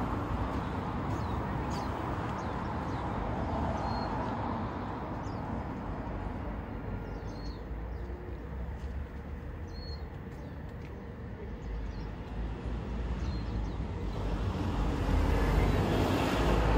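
Steady road traffic noise, with short high chirps from small birds scattered through. The traffic swells near the end as a vehicle passes.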